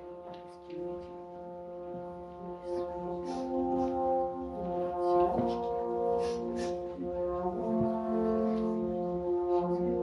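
Slow music of long, sustained chords that grows gradually louder.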